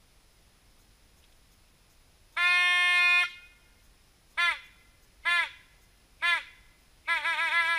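Hunting horn blown: one long held note, then three short notes that sag in pitch as they stop, then a quick warbling note near the end.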